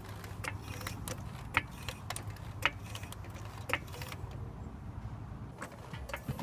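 Hydraulic floor jack being pumped by its handle to lift a car: a sharp click at each stroke, the loudest about once a second with lighter clicks between, over a low steady hum.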